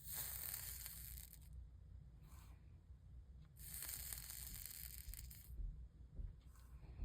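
Hot soldering iron sizzling on fluxed lead came joints, in two hissing bursts of about one and a half to two seconds each: one at the start and one about halfway through.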